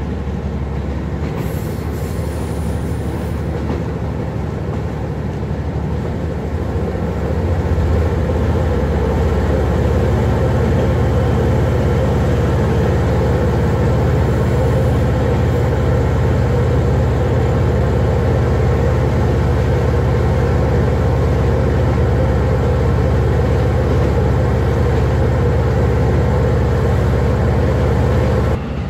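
MR diesel multiple unit running along the track, with a steady low engine drone and wheel noise. About eight seconds in the engine note gets louder and deeper, as under harder pulling.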